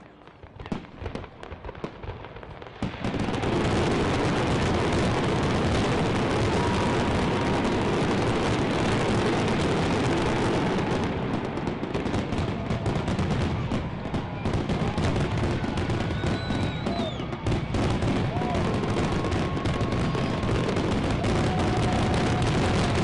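Fireworks finale: a few separate bangs, then about three seconds in a dense, unbroken barrage of shell bursts and crackle that runs on, with a few brief high whistles over it.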